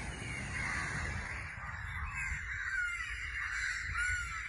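Many crows cawing together with other birds calling, a dense overlapping chorus over a low steady rumble.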